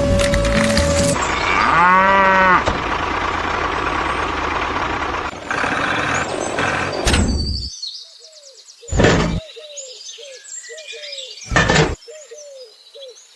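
A cow moos once over a steady noisy background. Then, in a quieter stretch, short chirps repeat, broken by two loud sudden noises.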